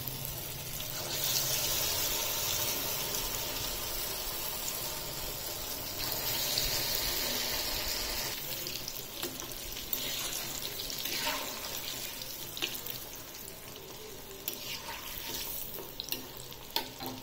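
Marinated chicken pieces deep-frying in hot oil in a kadai: a steady sizzling hiss that swells twice as more pieces drop in, then settles. A few sharp clicks near the end as the pieces are stirred with a metal spoon.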